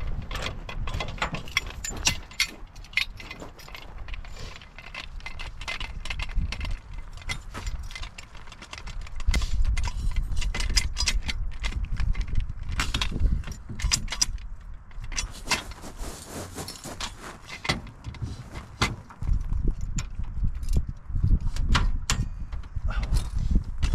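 Ford Bronco with a trailer driving over a rough, loose gravel track: a low rumble with constant irregular rattles, clicks and knocks.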